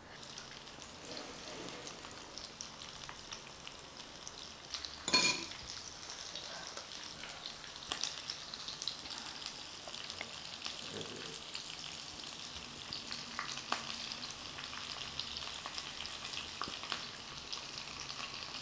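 Breaded meat and potato tikka skewers deep-frying in hot oil: a steady sizzle with fine crackles, and one sharp knock about five seconds in.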